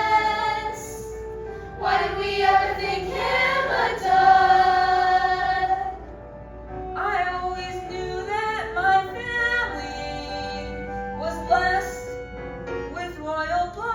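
A song with several voices singing long held notes over musical accompaniment. The singing eases off briefly about halfway through, then picks up again.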